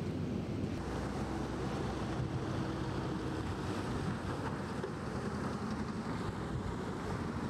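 Steady rush of wind on the microphone mixed with floodwater flowing and splashing through a street.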